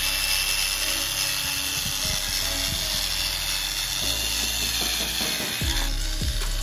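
Small electric gear motors of RC toy tractors whirring and grinding under load, over a steady hiss.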